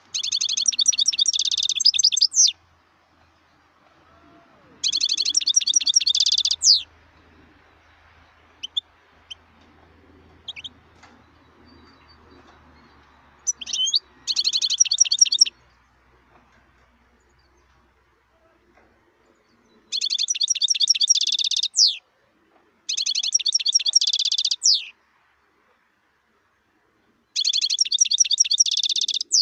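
European goldfinch singing: six bursts of rapid, high twittering trills, each about two seconds long, with pauses between. Several phrases end in a quick falling note, and a few faint single notes come in the gaps.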